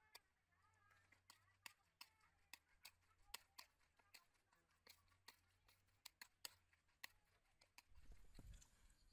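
A spoon clinking and scraping against a plate as a raw egg is stirred into a shredded stuffing mixture: faint, irregular clicks about twice a second. A low rumble comes in near the end.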